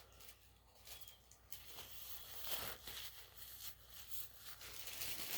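Faint rustling and small clicks from food and paper being handled and eaten, growing a little busier after the first second and a half.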